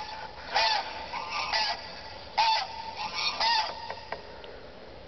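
Recorded goose honks played through a small handheld electronic caller: about six loud, short honks, some in quick pairs, stopping about four seconds in, over a faint steady tone.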